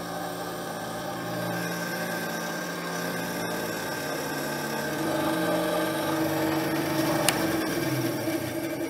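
Atika BS 205-2 benchtop band saw, a 250 W motor driving the blade over two wheels, running idle without cutting. It is on a test run with a freshly fitted and tensioned blade, and the sound is steady. There is a single sharp click about seven seconds in.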